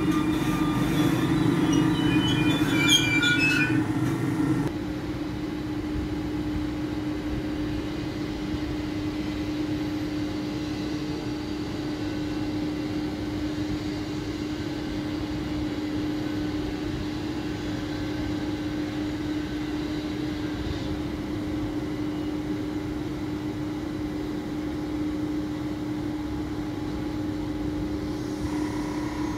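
An SBB Re 460 electric locomotive standing at the platform, giving out a steady electrical hum from its equipment and cooling fans. For the first few seconds it is louder, with a few brief high squeals, then it drops suddenly to a quieter, even hum about five seconds in.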